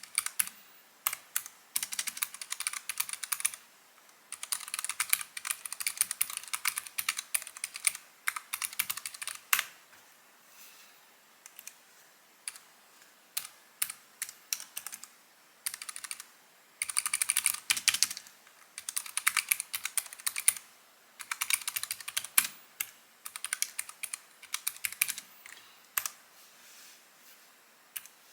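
Keychron K3 V2 ultra-slim mechanical keyboard being typed on: quick runs of key clicks a second or few long, with short pauses between them.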